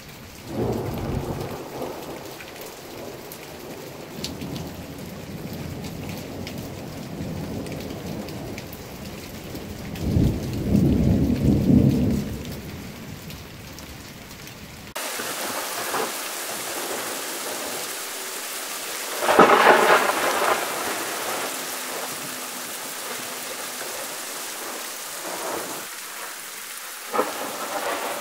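Night thunderstorm: rain falling steadily with thunder, a long low rumble about ten seconds in and a louder, sharper peal near twenty seconds. The background changes abruptly about halfway through.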